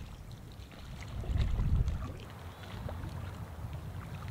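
Wind buffeting the microphone in gusts, a low rumble that swells about one and a half seconds in, with faint small ticks of lake water lapping.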